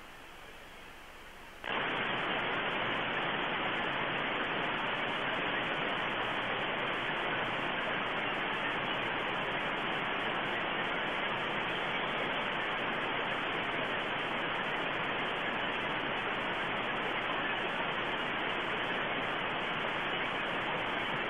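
Steady hiss of static that cuts in suddenly about a second and a half in and then holds without change.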